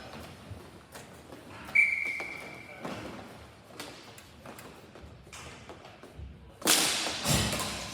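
Ball hockey play on an indoor rink: scattered clacks of sticks and ball, and a sharp hit about two seconds in that rings on one high tone for about a second. Near the end comes a loud burst of clattering noise lasting about a second.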